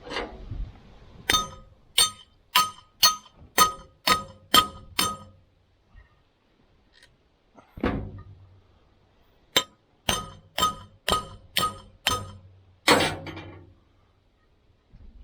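Hammer blows on a steel split wheel rim, in two runs of about two ringing strikes a second, with a couple of heavier, duller knocks in between, as the rim halves are worked into line.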